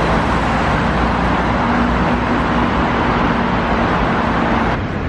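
Busy city street traffic: a steady wash of road noise with the steady hum of a vehicle engine. The sound drops off abruptly near the end.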